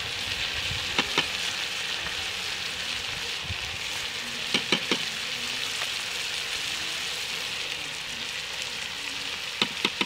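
Tomatoes, green chillies and onions sizzling steadily in hot ghee in a metal karahi, with a metal spoon clinking sharply against the pan: twice about a second in, three times near the middle and twice near the end.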